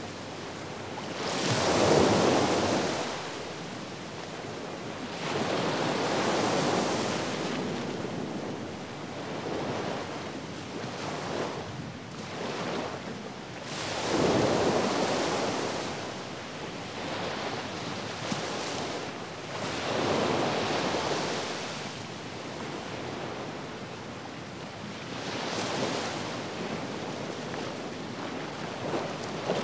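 Ocean surf: waves breaking and washing in one after another, a swell of rushing noise every four to six seconds.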